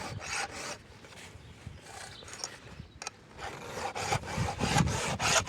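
A file rasping across a chainsaw chain's cutter teeth in repeated hand strokes, sharpening them. The strokes go faint in the middle and come back stronger near the end.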